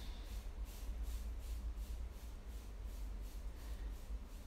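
Quiet room tone: a steady low hum with a faint hiss.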